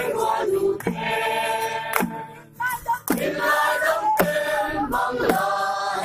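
A group of men and women singing a Christmas carol together, with a sharp beat about once a second.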